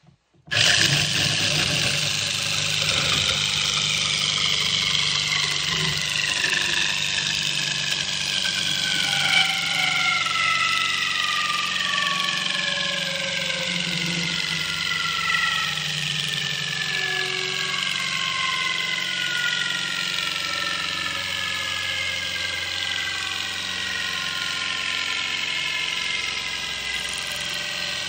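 Drill spinning a square wooden blank through a two-blade dowel cutter, the blades shaving it round into a 1-inch dowel. The drill's motor runs steadily over the rasp of the cutting, starting about half a second in, and several whining tones slide slowly down in pitch.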